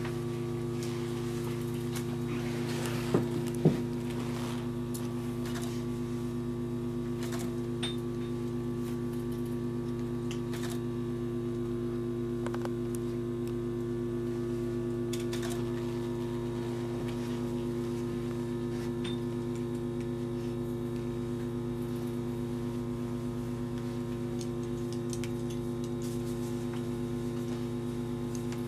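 A steady hum made of several held tones, with a few sharp clicks, the loudest two about three and a half seconds in.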